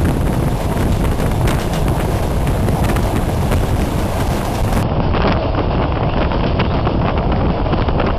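Two trains running side by side at speed, heard from a moving carriage window: a steady low rumble and rush of wind buffeting the microphone, with irregular rattling clicks of wheels and rolling stock from the freight train passing close by.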